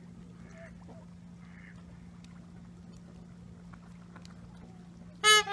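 A goose gives one loud honk near the end, after a few faint calls from the waterfowl on the lake, over a steady low hum.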